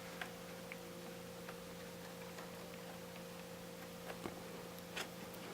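Faint, scattered small clicks and taps of small parts and cable connectors being handled and fitted inside an opened iMac, a pair of clicks about four seconds in and another near the end, over a steady low hum.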